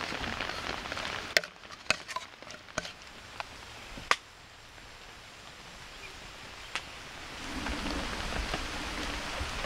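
Steady rain falling, fading after about a second and building again near the end, with four or five sharp knocks, like wood being struck or chopped, in between.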